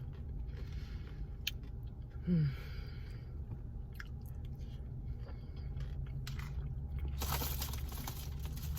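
Close-up chewing of food, with soft mouth clicks and squishes and a brief falling hum from the eater about two seconds in. A louder hissing noise sets in near the end.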